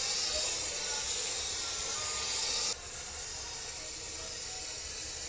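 Powder coating gun spraying powder with a steady hiss of compressed air. The hiss drops sharply in level between two bursts, about two and a half seconds in, and carries on more softly.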